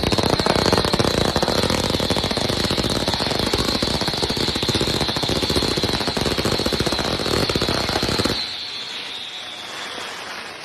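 A 300-shot 'King of Kings' firework cake firing its one-to-one finale: a dense, rapid barrage of shots with a steady high tone over it, stopping abruptly about eight seconds in and trailing off in a fading hiss.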